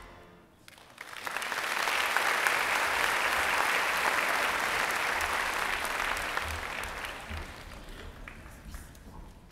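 Audience applauding. It starts about a second in, holds steady, and dies away over the last few seconds.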